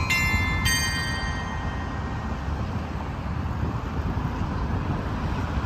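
The last two strikes of an automatic bell chime on a street pole, about half a second apart near the start, ringing out and fading within about a second. Steady city traffic hum follows.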